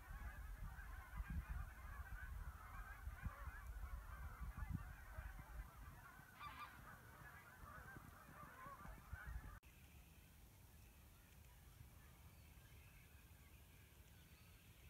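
A massed flock of geese honking in a dense, continuous chorus, with gusts of wind rumbling on the microphone. About two-thirds of the way through it cuts off abruptly to a much quieter background with only faint high calls.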